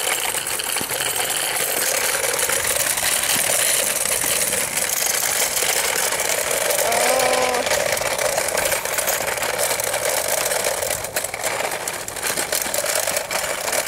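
Roller-skate wheels rolling steadily over rough concrete paving, a continuous gritty rolling noise as the skater circles.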